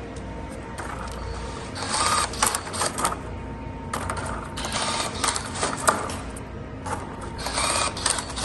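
SurSpider cordless rebar tying tool running through its tying cycle several times, in short mechanical bursts a second or so long and a couple of seconds apart, each one feeding, twisting and cutting the wire at a rebar crossing.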